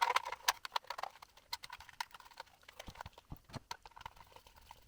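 Irregular light clicks and knocks of 3D-printed enclosure parts and small electrical components being handled and fitted together, busiest in the first second and sparser after.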